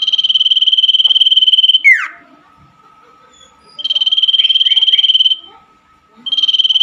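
Common iora (cipoh) singing: a long, rapid, high trill of just under two seconds that ends in a quick falling whistle. A second trill comes about four seconds in, and a third starts near the end.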